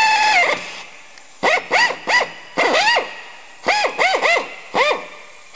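Air drill with a 5/16 in. bit drilling holes for through bolts. It is worked in trigger bursts, each a whine that rises in pitch as the motor spins up and falls as it slows. A steady whine winds down just after the start, followed by a string of about nine short bursts.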